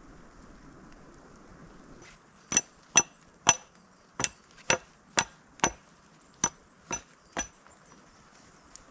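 About ten sharp hammer-like tool strikes, roughly two a second with a short pause midway, each with a brief metallic ring. A steady hiss of wind and snow runs beneath them before the strikes begin.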